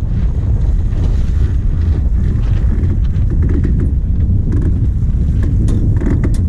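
Wind rumbling on the microphone aboard a Volvo 65 racing yacht under sail, loud and steady, with a few light clicks midway.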